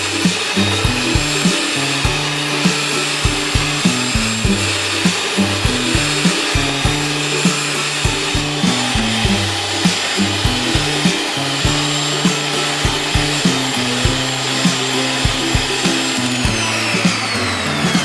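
Electric hand mixer running steadily, its beaters whipping eggs and sugar into a thick foam; near the end its motor whine falls as it slows down. Background music plays underneath.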